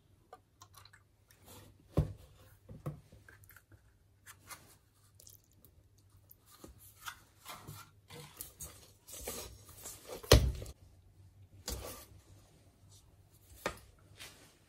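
Kitchen handling noises while mixing cake batter in a stainless steel bowl: scattered knocks and taps of a wire whisk and a yogurt cup against the bowl, with short stretches of scraping and stirring. The loudest knocks come about two seconds in and about ten seconds in.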